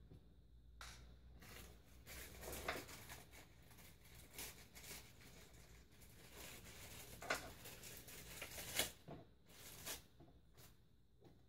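Small microscope parts being handled on a desk: faint scattered clicks and brief rustles, with a few sharper clicks about two and a half, seven and nine seconds in.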